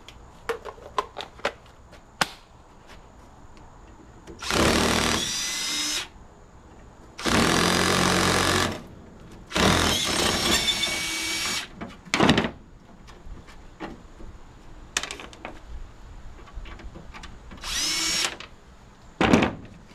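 Hand-held power drill running in three bursts of one to two seconds each and a short one near the end, working a brass fitting off a scrapped air conditioner. Light clicks and taps of metal parts come before it, and a sharp knock just before the end.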